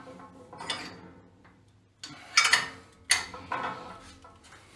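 A few separate sharp clicks and knocks, the loudest about two and a half and three seconds in.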